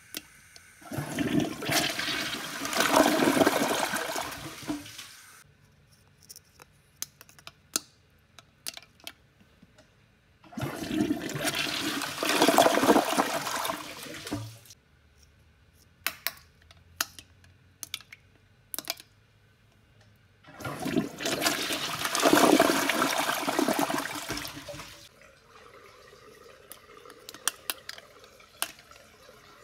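Toilet flushing three times, each a rush of water lasting about four seconds as the bowl drains and refills. Short sharp clicks and knocks come in the gaps between the flushes.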